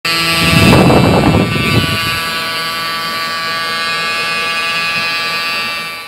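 Small electric motor running with a steady high buzzing whine, with a rough rumble over it in the first two seconds; the whine fades out at the end.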